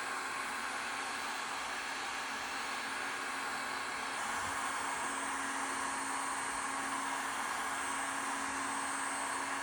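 Handheld hot-air blower running steadily: an even rush of air with a faint low hum.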